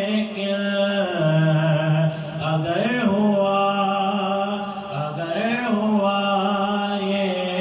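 A man's solo voice singing a naat unaccompanied: long held notes that slide through ornamented melodic turns about three seconds and five and a half seconds in.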